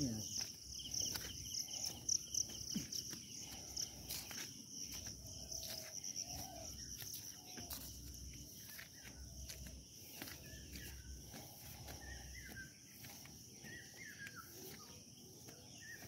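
Insects chirring steadily in a high, continuous drone, with scattered soft clicks of footsteps on a dirt path and a few faint short chirps in the later part.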